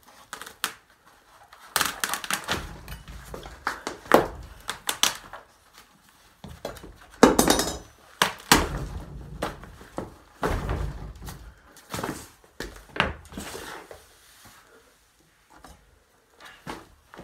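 A sneaker being cut and torn apart with a kitchen knife: irregular rasping rips and scrapes of the upper and sole, with sharp knocks and thuds against the floor, the loudest about seven seconds in.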